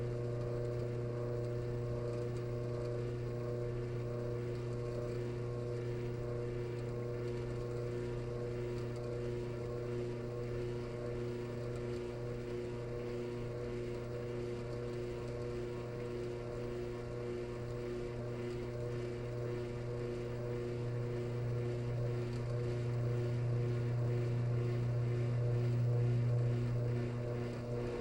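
Washing machine drain snoring while the machine pumps out: a steady low drone with a gurgling rasp. It swells louder over the last several seconds, then eases off just before the end.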